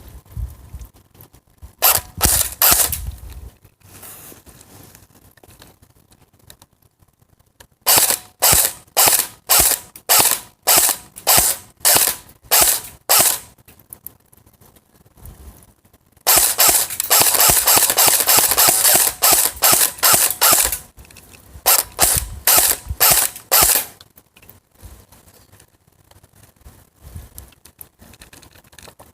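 Airsoft rifle firing: a few quick shots, then a run of single shots about two a second, then about four seconds of rapid continuous fire, then a few more shots near the end.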